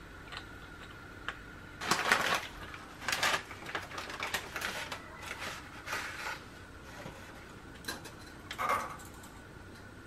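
Kitchen handling noises: a plastic bag of dried buckwheat noodles crinkling and rustling in irregular bursts as the noodles are pulled out, the loudest about two seconds in, over a faint steady tone.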